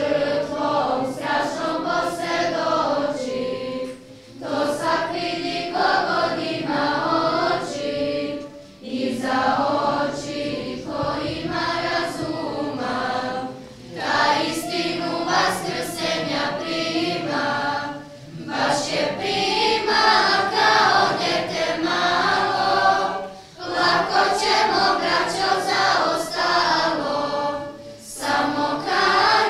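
Serbian Orthodox church choir singing a hymn in phrases of about four to five seconds, with short breaks between them.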